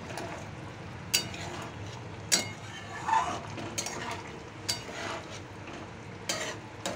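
A metal spatula stirring a bubbling curry in a metal kadai, clinking sharply against the pan about six times over a steady simmering sizzle.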